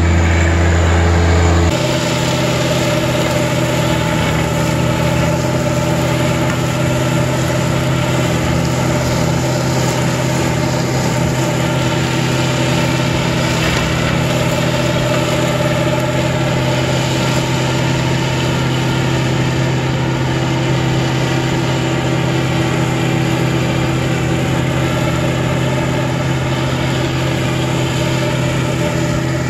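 John Deere 1025R compact tractor's three-cylinder diesel running steadily under load, driving an offset flail mower through tall grass. The low rumble drops and the tone shifts about two seconds in.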